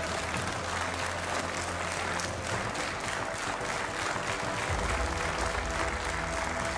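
Audience applauding steadily, a dense patter of clapping.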